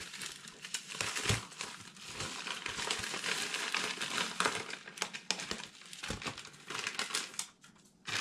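Plastic mailer envelope crinkling and rustling as it is pulled open and handled, then a small parts bag rustling; the rustling dies down near the end.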